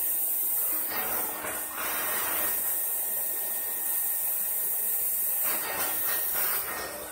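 Roboclean vacuum running with its shampoo spot-cleaning nozzle on carpet: a steady hiss of suction over a faint motor hum, louder in two stretches, about a second in and again near the end.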